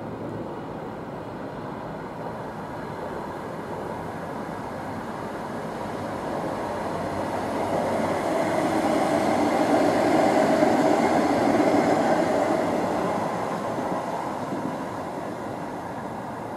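An ION light rail tram, a Bombardier Flexity Freedom, running past on its rails. Its rumble grows louder, is loudest around ten to twelve seconds in, then fades as it moves away.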